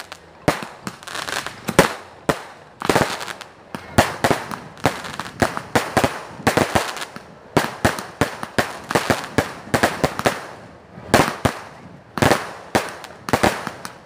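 Aerial fireworks firing from the ground and bursting overhead: a rapid, irregular string of bangs, several a second, with crackling between them.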